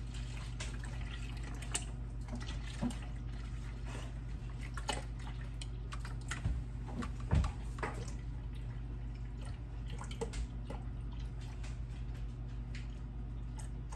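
Small scattered liquid drips and plops with light kitchen handling clicks, over a steady low hum.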